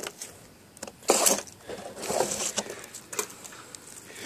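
Footsteps scuffing on asphalt roof shingles: a few irregular scrapes and knocks, the loudest about a second in.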